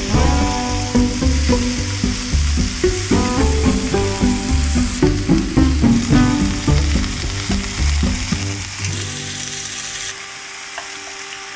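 Thin-sliced beef with sliced onion and leek sizzling in a hot frying pan, under background music with a steady beat. The music drops out near the end, leaving the sizzle.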